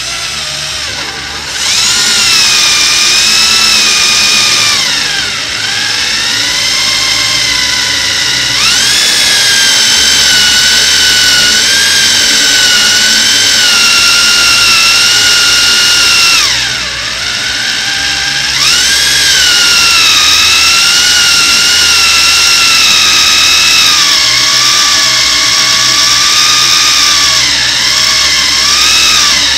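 Power drill running in long stretches, boring a hole through the boat's fiberglassed deck. Its whine sags in pitch several times as the bit loads up, then climbs back.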